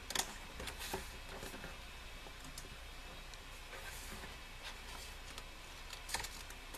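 A few short paper rustles and taps from handling a thick album photobook, about a quarter and one second in and again near the end, over the steady whir of a computer fan that is running hard.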